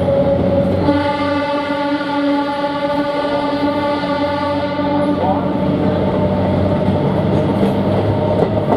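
Malda Court–Siliguri diesel multiple unit sounding its horn in one long steady blast of about four seconds, starting about a second in, over the steady drone of its diesel engine as it pulls away.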